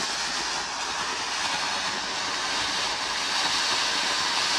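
Ground fountain firework (anar) burning, its jet of sparks giving a steady rushing hiss that grows a little louder near the end.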